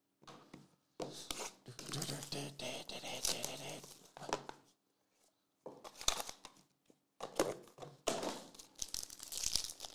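A trading card pack's plastic wrapper being torn open and crinkled by hand, in crackling bursts with a short pause about halfway through.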